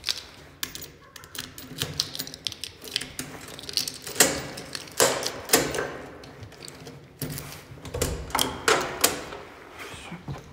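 Irregular clattering clicks and knocks, several a second at times, with a few louder knocks around the middle and again about three-quarters through.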